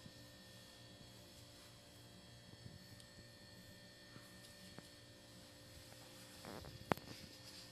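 Faint steady electrical hum, with a brief rustle and one sharp knock near the end as a hand handles a bowl on the table.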